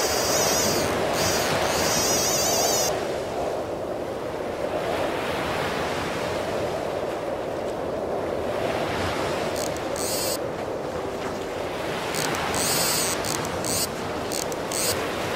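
Atlantic surf breaking and washing up a sandy beach, a steady rushing noise. There are short spells of a high, wavering whirr in the first few seconds and again near the end.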